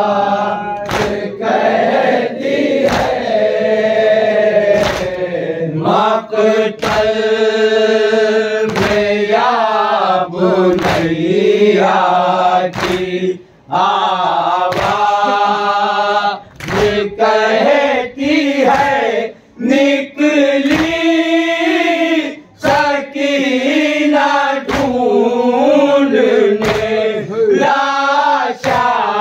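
Men chanting a noha, an Urdu mourning lament for Husain, in unison behind a lead reciter, with sharp chest-beating (matam) thuds marking a steady beat about once a second.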